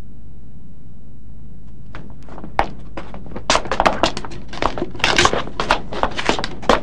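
Hard footsteps on stone steps: irregular sharp clacks, several a second, starting about two seconds in, over a steady low hum.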